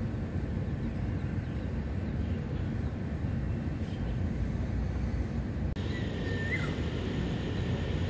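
Steady low rumble of city background noise, like distant traffic, with one short bird call about six seconds in that rises and then drops in pitch.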